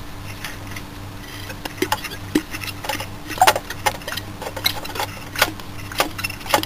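Scattered light metallic clicks and knocks as the cut-open rotary compressor's pump and rotor assembly is handled and shifted, over a faint steady hum.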